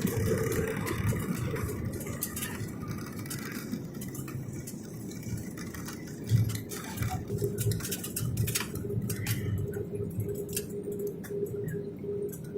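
Cabin noise inside an Airbus A320 on the move: a low rumble with scattered clicks and rattles, a sharper knock about six seconds in, and a steady hum setting in soon after.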